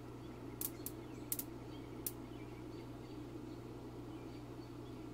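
Faint steady low hum, with five short sharp clicks in the first two seconds and a few faint high chirps.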